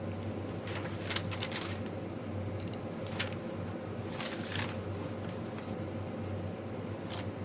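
Quiet room tone: a steady low hum with a few faint, brief rustles.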